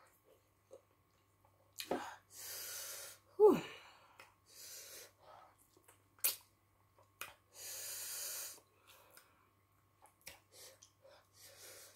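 A person eating fufu and soup with her fingers: two long airy hisses through the mouth, and a short loud vocal gasp that falls in pitch about three and a half seconds in. Wet lip smacks and mouth clicks come in between.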